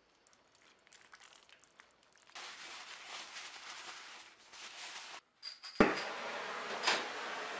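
Paper towel rubbing and rustling as a gloved hand wipes the steel hammer head. About six seconds in comes a sharp pop and then a steady hiss: a gas torch lighting and burning to heat-treat the hammer.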